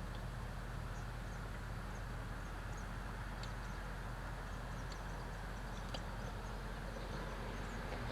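Steady outdoor background noise with a low hum, faint high bird chirps repeating throughout, and a few light clicks.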